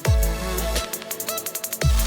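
Background electronic dance music with a heavy beat: deep falling bass drops at the start and just before the end, and a quick run of hits in between.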